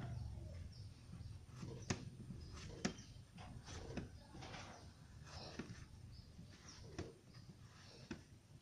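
Faint, irregular taps and knocks, roughly one a second, from food preparation: pieces of palm sugar being cut and handled.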